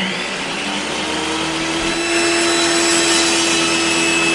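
Sound effect of a circular-saw machine running: a steady motor hum under a loud whirring hiss, the hum rising slightly in the first half second and then holding.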